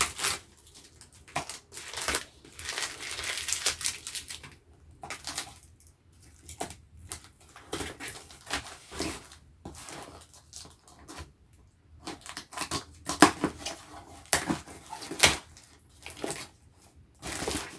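Parcel packaging being torn open and unwrapped by hand: irregular crinkling, crackling and tearing of plastic and bubble wrap, with a few louder crackles about two-thirds of the way through.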